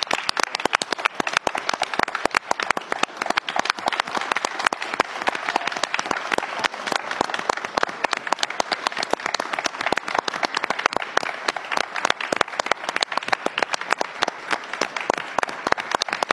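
A round of applause from several people clapping their hands, steady and unbroken.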